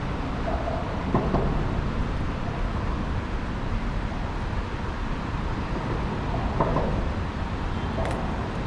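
Steady rushing of water pouring through a small concrete spillway, a constant low rush with a faint click near the end.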